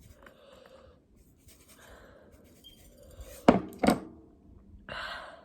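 Faint rustling, then a woman's two short, sharp breathy vocal sounds less than half a second apart, followed by a breath near the end, as she braces to eat a very hot jalapeño.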